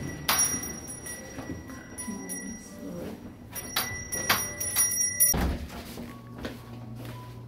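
A door chime rings twice as a shop door is opened, a steady high ringing lasting a couple of seconds each time and starting with a click. A thud follows about five seconds in.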